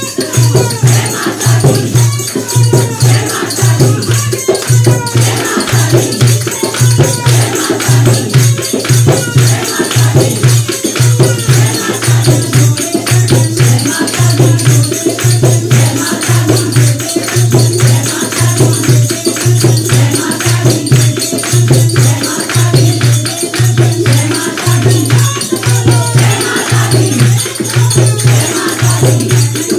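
Women singing together, led by one voice on a microphone, with hand clapping, jingling percussion and a steady low drum beat a little more than once a second.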